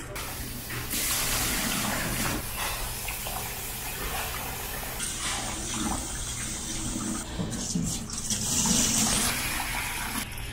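Tap water running into a pot of millet in a stainless steel sink while the grain is stirred and rinsed by hand. Near the end the cloudy rinse water sloshes and is poured out of the pot into the sink.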